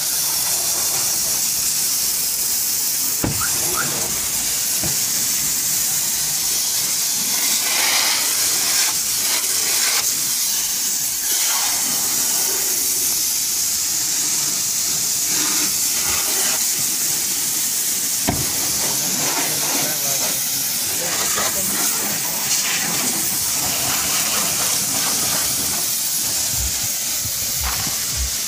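Water hissing steadily from a hose's spray nozzle as a fine jet rinses a car's interior and bodywork, with a couple of brief knocks.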